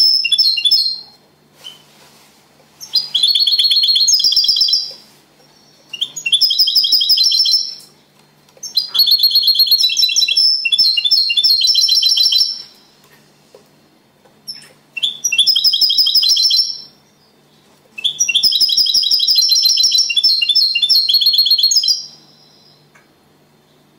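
Caged European goldfinch singing in the Spanish 'copia Málaga' style: a run of about six fast, trilled song phrases, each one to four seconds long with short pauses between, the last ending about two seconds before the end.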